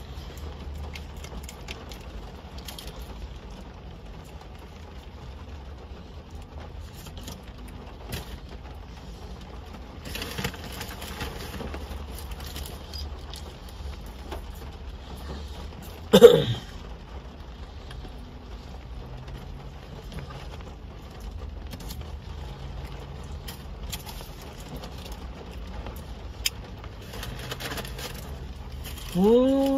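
Car interior ambience: a steady low hum with faint scattered tapping and rustling. About 16 seconds in there is one brief, loud, high-pitched squeak, and a child's voice starts right at the end.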